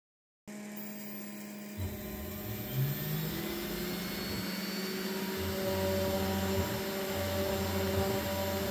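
CNC router spindle with a V-bit running at a steady 12,000 rpm, humming on one steady tone. From about two seconds in, the Nema 23 stepper motors on the lead screws join it, whining on tones that change pitch and start and stop as the axes move the bit toward the plywood.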